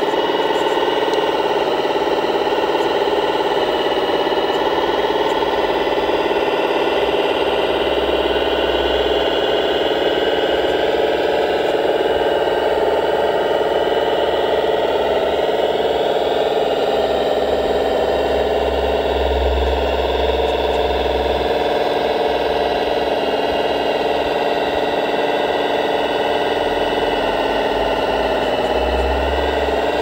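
Steady mechanical hum of radio-controlled construction models at work, a tracked skid-steer loader's drive and hydraulics, with several pitches that drift slowly as the load changes. Deeper low rumbles swell in now and then.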